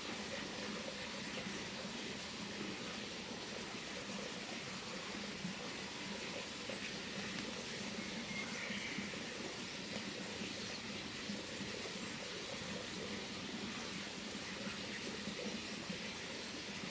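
Steady, even background hiss with no distinct events, with a brief faint high chirp about eight and a half seconds in.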